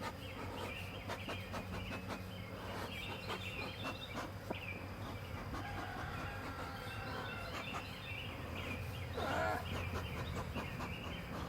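Honeybees buzzing steadily around an opened hive, agitated after the hive was disturbed, with birds calling repeatedly in the background and scattered clicks and knocks.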